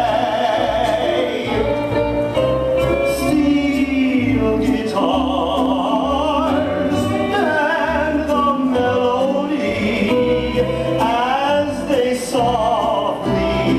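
A recorded song playing: singing voices hold long, gliding notes over the backing band.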